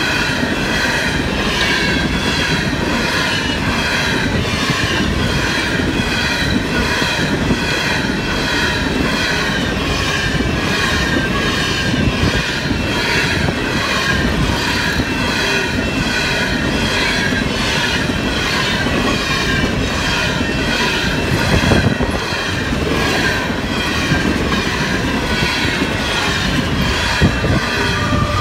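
Loaded coal hopper cars of a freight train rolling past, their wheels rumbling and clattering on the rails. A level-crossing bell rings steadily over it, about two strokes a second.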